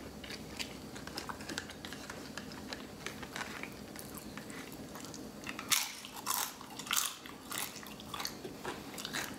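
Tortilla chips being bitten and chewed, a run of crisp crunches that grows louder for a couple of seconds past the middle.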